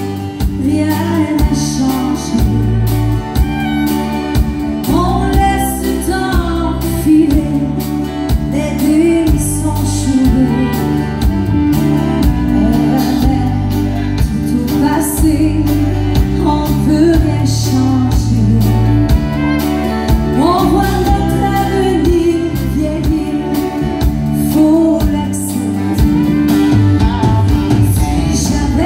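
Live country song: a woman singing, strumming an acoustic guitar, with a backing band including drums, played through a PA.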